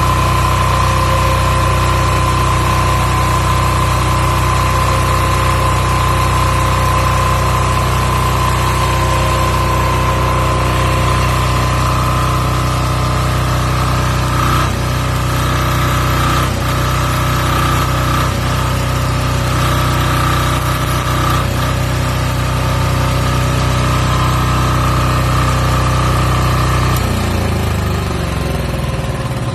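Marpro MPD9000EWi air-cooled diesel welding generator running steadily with a constant high whine over the engine note; near the end the engine speed drops and its pitch slides down.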